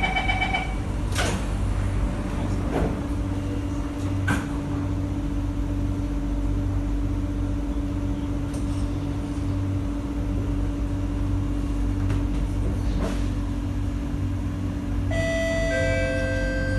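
Interior of an SMRT C151A metro train as it departs: the door-closing chime ends, the doors shut with a few clunks, and the train pulls away with a steady hum over the running noise. Near the end, chime tones sound ahead of the next-station announcement.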